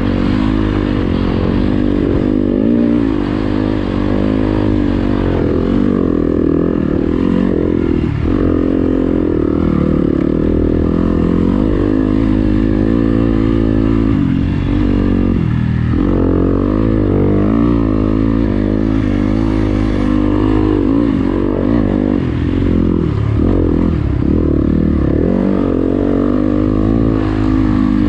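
Motocross bike engine running hard through deep sand, heard from on board. Its pitch rises and falls again and again as the throttle opens and closes, with several deeper drops in the revs along the way.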